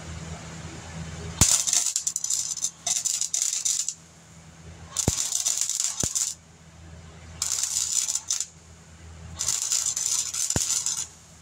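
Welding on sheet-metal body panels in short stitches: four bursts lasting one to two and a half seconds, each starting with a sharp click, with short pauses between them.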